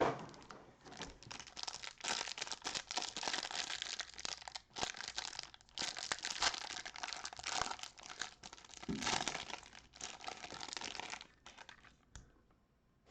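Packaging of a trading-card hanger box being torn open and crinkled, as the cards are unwrapped. Dense crackling for about eleven seconds, with two brief pauses partway through, then it dies away.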